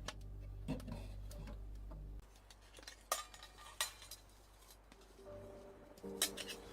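Soft background music with sustained low chords that stops about two seconds in, leaving a few sharp, separate clinks and knocks, like metal cookware or utensils being handled; the music comes back near the end.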